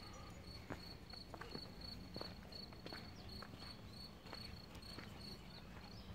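Crickets chirping steadily, a faint high chirp repeating about three to four times a second, with soft footsteps on a dirt path about every 0.7 s.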